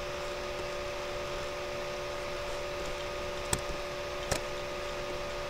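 Steady low hum and hiss of microphone and room noise, with two sharp mouse clicks a little under a second apart past the middle.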